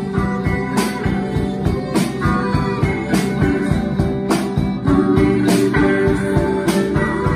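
Live rock band playing an instrumental passage: guitars over bass and drums, with a drum hit about once a second.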